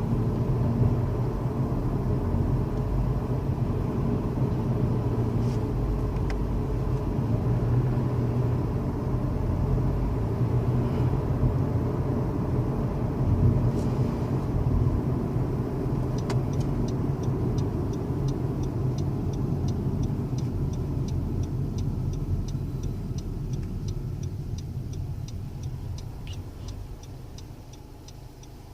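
Cabin road and engine noise of a 2016 Honda Civic on the move. A little past halfway, the turn-signal relay starts ticking steadily for a lane change. The road noise eases off near the end as the car slows.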